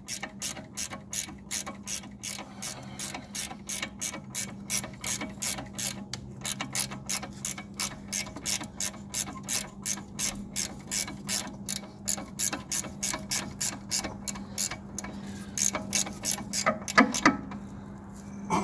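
Hand ratchet with a 10 mm socket clicking steadily, about four clicks a second, as it turns a C7 Corvette's ride-height adjustment bolt counterclockwise to lower the car. The clicking thins out near the end.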